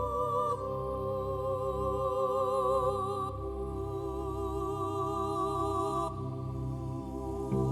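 Background music: sustained, wavering synth tones moving between chords over a steady low bass pulse.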